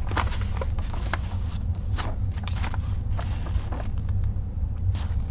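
Paper and cloth being handled: scattered short rustles and crinkles as a printed cross-stitch fabric and its paper instruction sheet are unfolded, over a steady low hum.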